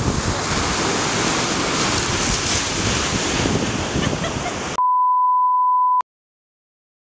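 Ocean surf and wind buffeting the microphone, a steady rushing noise that cuts off abruptly about five seconds in. A single steady beep tone follows, lasting about a second, and stops sharply.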